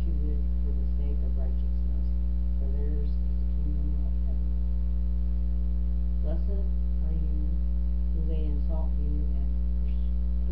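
Loud, steady electrical mains hum, a low buzz with evenly spaced overtones, running unbroken under faint, indistinct sounds that come and go.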